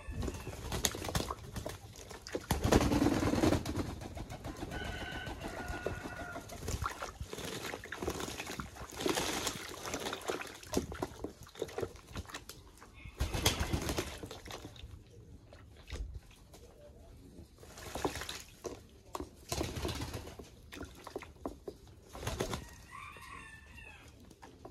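English Modena pigeons bathing: irregular bursts of splashing and wing-flapping, with the loudest flurries about 3, 13, 18 and 22 seconds in, and a few short bird calls.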